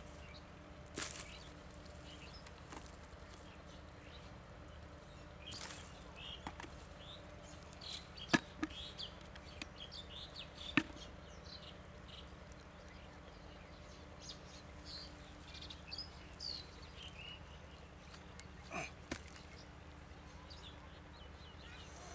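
Hands breaking apart and pulling out clods of dry, cracked mud from a hole in the ground: scattered crumbling scrapes and knocks of earth, with two sharp clicks around the middle, over a faint steady low hum.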